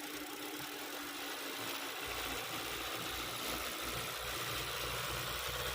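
Hyundai Sonata DN8's 2.5-litre four-cylinder engine idling under a steady hiss, its low rumble coming up about two seconds in.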